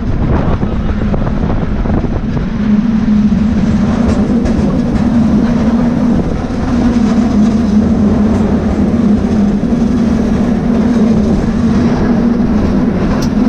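San Francisco cable car running along the street: a loud, steady hum with rumbling and rattling from the car on its rails, and a few sharp clicks near the end.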